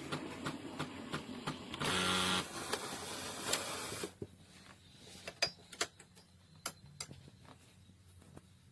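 A small machine running with clicks and rattles, louder briefly about two seconds in, stopping about four seconds in; after that only scattered light clicks.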